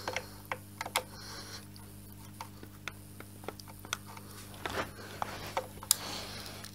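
Scattered light clicks and short scrapes of a screwdriver bit working at a stubborn screw in a Kirby G4 vacuum cleaner's metal housing; the screw head is starting to round out and will not turn.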